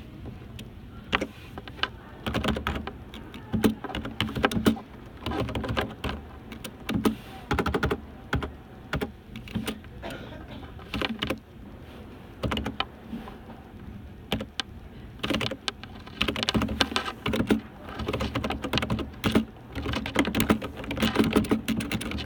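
Typing on a computer keyboard: rapid irregular key clicks in bursts, with short pauses between runs.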